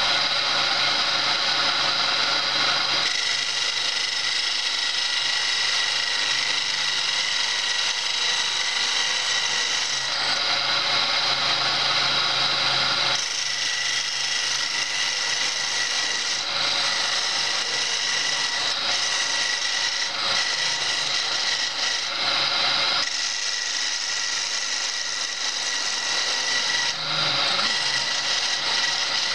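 Homemade belt-driven wood lathe running steadily while a chisel held on the tool rest cuts a spinning wooden spindle; the scraping of the cut swells and drops in long passes over a steady whine.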